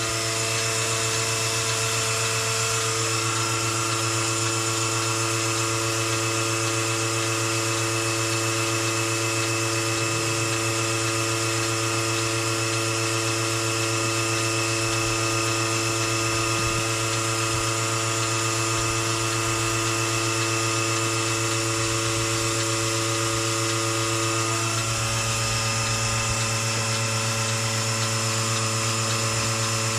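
Electric vacuum pump of a Melasty milking machine running steadily as it milks a cow, a constant motor hum and whine. Its tone changes slightly about 25 seconds in.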